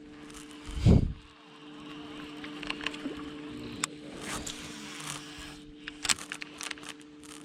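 A boat's motor, most likely a bow-mounted electric trolling motor, hums steadily at one pitch. A loud, deep thump comes about a second in, and light clicks and ticks follow through the rest.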